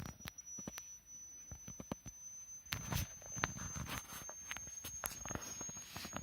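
A thin, very high test tone gliding slowly upward in pitch, part of a hearing-test frequency sweep, under irregular clicks, knocks and low thumps.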